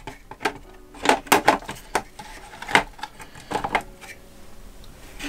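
Sharp plastic clicks and knocks, scattered irregularly with some close together, as a 1/10-scale RC truck's hard plastic cab is handled and pushed onto its chassis to test the fit.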